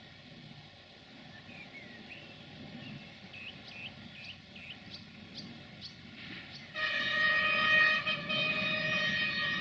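Diesel multiple unit approaching with a low engine rumble that grows louder, birds chirping, then the train's horn sounds a loud, steady blast of about three seconds starting about seven seconds in.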